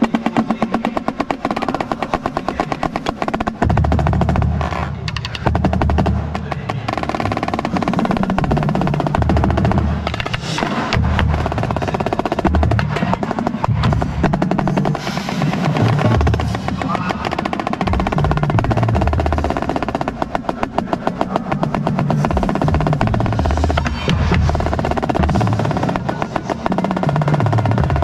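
Marching snare drum played close up in a drum corps, fast dense strokes and rolls, over low held notes from the rest of the ensemble that change every second or two.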